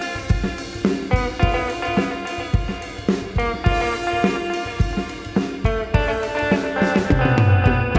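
Ambient instrumental jam in a Celtic shuffle feel: a Fender Meteora electric guitar, through a modelling unit and a Fender Tone Master amp, rings out sustained, echoing notes over a steady drum beat with low hits about twice a second. A deeper low note swells near the end.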